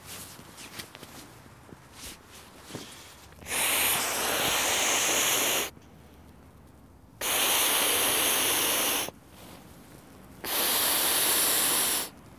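An inflatable sleeping mat being blown up by mouth: three long, even breaths of about two seconds each, forced into the valve with short pauses between them. Soft rustling and small clicks come before the first breath.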